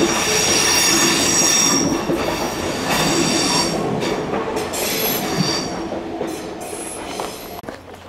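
Kintetsu electric train passing close by, its wheels squealing in high-pitched tones over the rumble of the cars. It starts suddenly, is loudest in the first two seconds, then slowly dies away.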